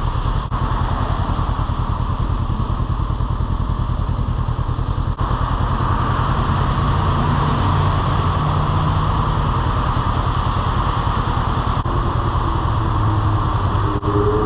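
Motorcycle engine running steadily while riding, with a fast, even pulse and a broad rush of wind and road noise over it.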